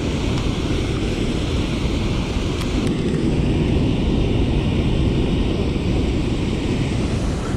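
Waterfall pouring into a reservoir: a steady, unbroken rush of falling water, heaviest in the low rumble.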